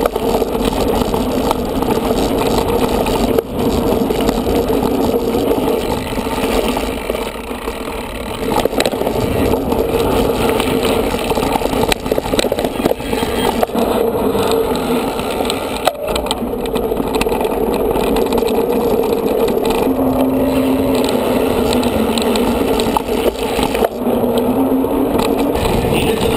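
Steady riding noise from a mountain bike picked up by a bike-mounted camera: wind on the microphone, tyres rolling, and the bike and mount rattling.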